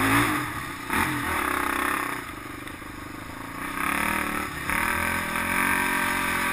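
Polaris Outlaw 500 quad's single-cylinder four-stroke engine running hard under changing throttle, with one sharp knock about a second in. It eases off and goes quieter about two seconds in, then picks up again near four seconds.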